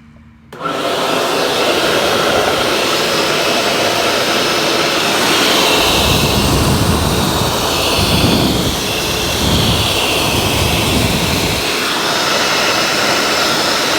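Hoover SpinScrub 50 upright carpet cleaner switched on and running: its motor starts about half a second in and keeps up a loud, steady rushing sound. From about 6 to 12 s a deeper, uneven rumbling joins in, then the steady run continues.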